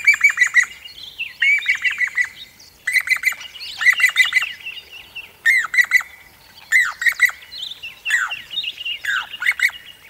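Jacobin cuckoo (pied crested cuckoo) calling: a string of short phrases, about one a second, each a quick run of four or five sharp notes, with higher notes in between.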